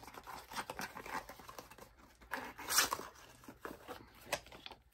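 A small cardboard perfume box being opened and handled: irregular rustling, scraping and crinkling of card and paper, loudest about two to three seconds in.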